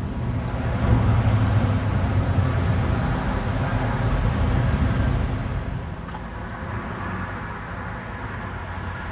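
Motor vehicle driving: steady engine and road rumble that eases off about six seconds in.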